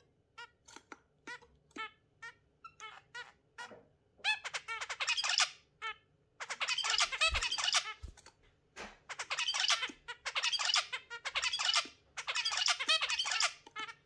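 Zebra finch and budgerigars calling: short separate calls, about two a second, for the first four seconds, then several dense bursts of fast chattering calls, each a second or two long.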